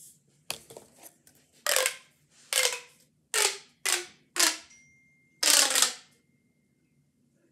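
Plastic pop tube fidget toy being stretched and pushed back in, each pull a short, loud burst of popping clicks as its ribbed sections snap open. About six such bursts come in a row, then it stops about six seconds in.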